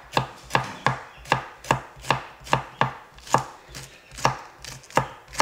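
Chef's knife chopping green chili on a wooden cutting board: steady, even knocks of the blade on the wood, about two to three a second.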